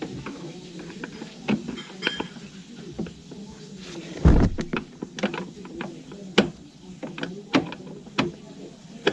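Irregular clicks and knocks of hands handling hard parts, with one heavy thump about four seconds in, over a faint steady hum.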